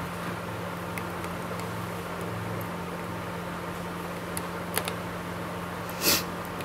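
A small precision screwdriver working the screws of a phone's back frame, giving a few faint clicks, with a short, louder scratchy sound near the end. A steady low hum runs underneath.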